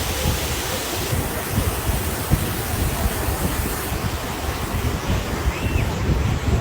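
Steady rush of a waterfall, with wind buffeting the microphone in uneven low gusts.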